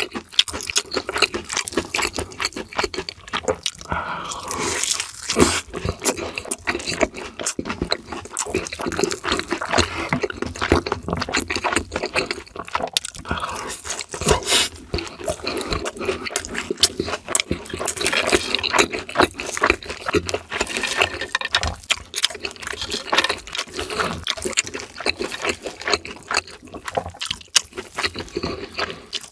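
Close-miked eating: continuous crunching and wet, sticky chewing, with dense irregular mouth clicks and smacks.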